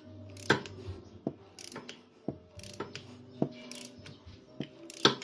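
Ratchet of a click-type torque wrench clicking as it is swung back and forth to tighten a new spark plug toward a 13 N·m setting. About eight sharp clicks at uneven spacing, the loudest about half a second in and near the end.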